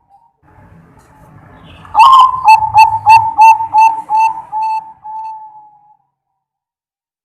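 Zebra dove (perkutut) singing. A loud opening note comes about two seconds in, then a run of short, quick coos that slow down and end in one longer drawn-out note.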